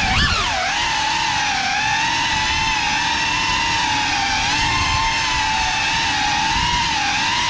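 GEPRC CineLog35 cinewhoop quadcopter's brushless motors and ducted propellers whining at a fairly steady pitch, wavering slightly with small throttle changes as it cruises slowly at low altitude.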